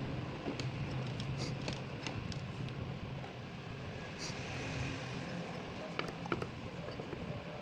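Car engine running steadily, with a few light sharp clicks about six seconds in.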